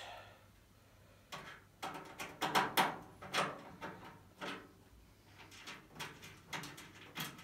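Irregular metallic clicks and knocks, about a dozen, the loudest between two and three seconds in, as screws are taken out of a sheet-steel roller cab tool chest with a screwdriver.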